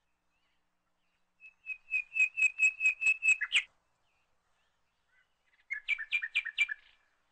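A bird calling: a run of about ten quick, even chirps, about five a second, then after a couple of seconds' pause a shorter run of about six.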